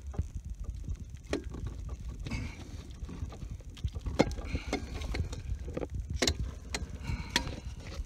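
Irregular metallic clicks and knocks as a hand works at a rusty old starter motor's terminal connections and cables, over a low steady rumble.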